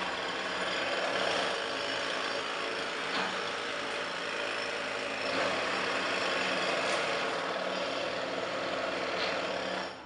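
Pneumatic jackhammer breaking up concrete, a continuous rapid hammering rattle that stops abruptly at the very end.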